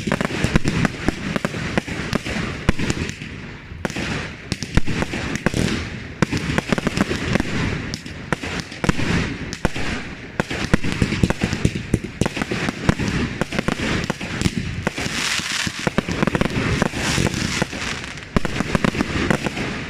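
Fireworks firing in quick succession: a dense, continuous stream of bangs and crackling with no pauses.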